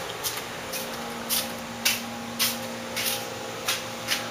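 Boxer dog panting: short hissy breaths about two a second, over a steady low hum.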